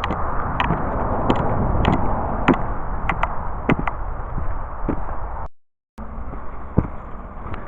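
Footsteps of a hiker walking a muddy woodland trail: sharp steps every half second or so over a steady low rush. The sound cuts out for about half a second near the end.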